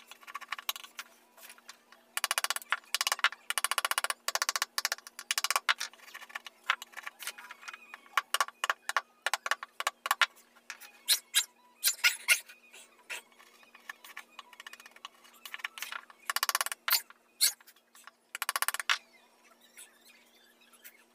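Hand chisel scraping and paring wood in a string of short rasping strokes, each a quick rattle of tiny cuts, broken by sharp clicks of the blade on the wood.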